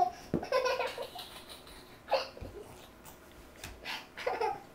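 A baby giggling and vocalising in several short, separate bursts.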